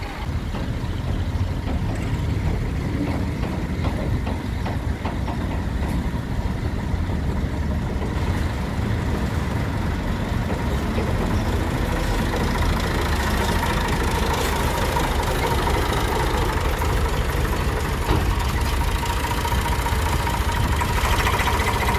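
Heavy diesel engine idling steadily, with a steady whine joining in about halfway through.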